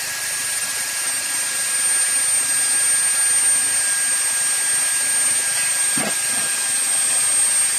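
Handheld electric pile driver running steadily, a continuous hiss with a high whine held throughout, and a short sound about six seconds in.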